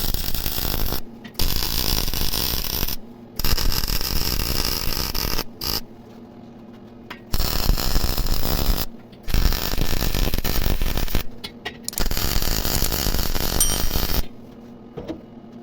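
Welding arc crackling and hissing in about six bursts of one to two seconds each, starting and stopping abruptly with short pauses between them.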